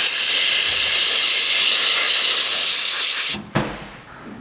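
Aerosol can of white grease spray hissing steadily as it is sprayed to lubricate a sticking tailgate latch mechanism. The spray cuts off suddenly about three seconds in, followed by a short knock.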